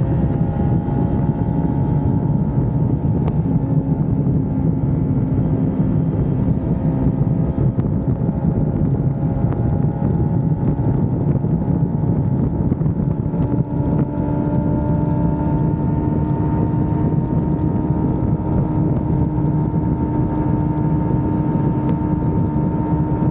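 Kawasaki Ninja 400's parallel-twin engine running at a steady cruise, its pitch holding nearly constant with a slight rise in the second half. Wind rushes over the microphone throughout.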